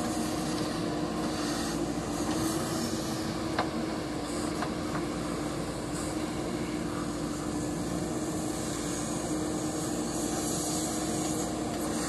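Diesel engine of a JCB 3DX backhoe loader running steadily under load as it works the backhoe arm. There is a single sharp knock about three and a half seconds in.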